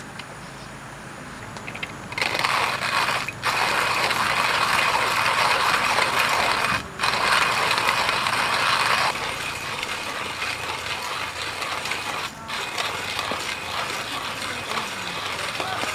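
Hand-cranked burr coffee grinder grinding roasted coffee beans. It starts about two seconds in, is loud for several seconds and then goes on more quietly, with a few short breaks in the cranking.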